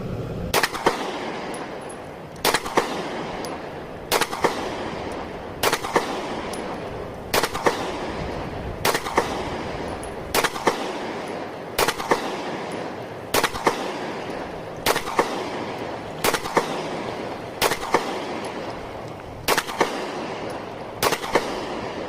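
CZ 75B pistol firing at a slow, even pace, about fourteen reports roughly every second and a half. Each report is heard as two sharp cracks close together, followed by a ringing, echoing decay.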